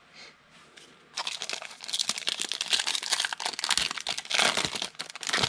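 Foil trading-card pack wrapper being torn open and crinkled by hand. A dense crackling that starts about a second in and keeps going.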